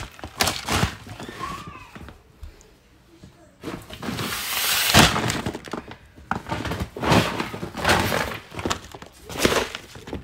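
Crinkling and rustling of woven plastic rice sacks being handled, in several bursts, the longest and loudest about four to five seconds in.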